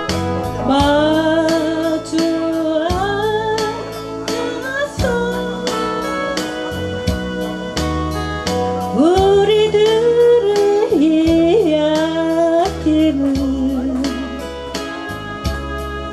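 A singer singing a slow, sustained melody with vibrato over instrumental accompaniment and a steady beat.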